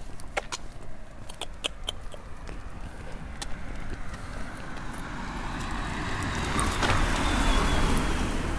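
A car approaching and passing close by: its tyre and engine noise swells over several seconds, peaks near the end, and carries a faint, slowly falling whine. A few sharp clicks sound in the first few seconds.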